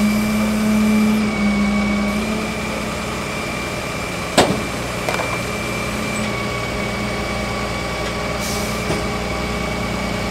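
Flatbed tow truck engine idling steadily, a low hum with a thin high tone held above it, and a single sharp knock about four seconds in.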